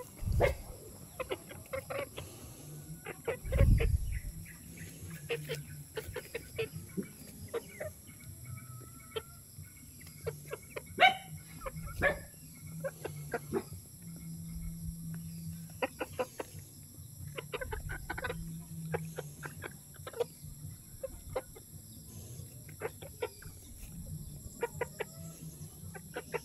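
Chickens pecking at termites in the dirt: soft clucks and many quick pecking taps, with a short sharp call about eleven seconds in. Two low thumps come near the start, and a steady low hum runs underneath.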